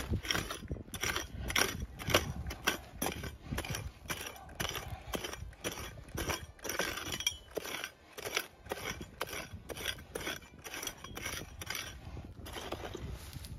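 A prospecting pick chopping into stony red soil, about two to three strikes a second, each a sharp knock with a gritty scrape of dirt and small stones.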